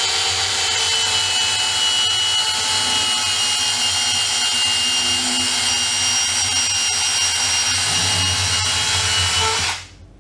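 Bosch EasyCut 12 cordless NanoBlade saw running steadily with a whine while its small chain blade cuts down through a block of cheese, stopping suddenly near the end.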